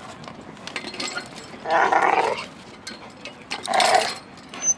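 A dog vocalizing twice, each call lasting about half a second, about two seconds apart, with faint clicks between them, while it plays at chewing a wheel.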